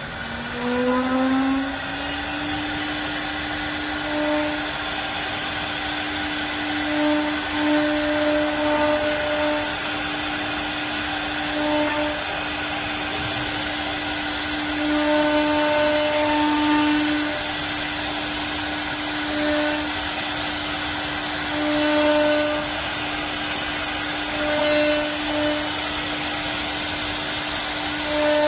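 CNC router spindle spinning up, its whine rising in pitch over the first two seconds, then running at steady speed. Every few seconds the sound swells briefly as the machine works.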